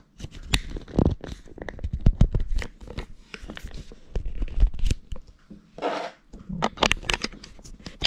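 Close handling noise from a small camera being fitted and screwed onto a tripod: a quick irregular run of clicks, taps and scrapes on the camera body, with a brief rubbing rustle about six seconds in.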